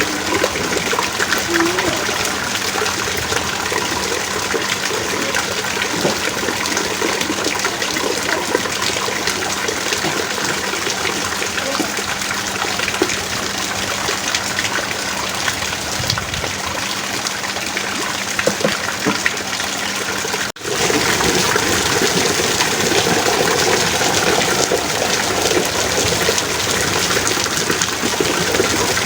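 Heavy rain pouring steadily. About two-thirds of the way through it cuts out for an instant, then comes back slightly louder.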